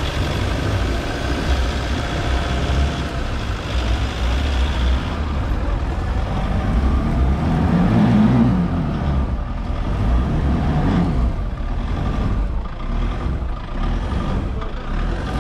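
Diesel pickup engine running hard under load while its mud-tyred wheel spins in loose forest soil. The sound swells to its loudest about halfway through.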